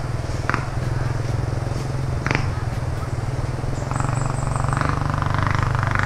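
Small motorbike engine running steadily at low revs while riding, picking up a little about four seconds in.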